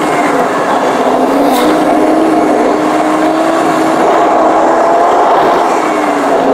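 Car engine and road noise heard from inside a moving car: a steady hum over tyre and wind hiss, drifting slightly in pitch as the car cruises.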